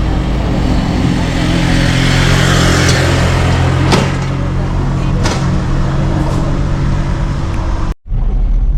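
Moving car's engine and road noise: a steady low hum under a hiss of tyres and wind, with two short clicks about four and five seconds in. The sound breaks off abruptly for an instant near the end.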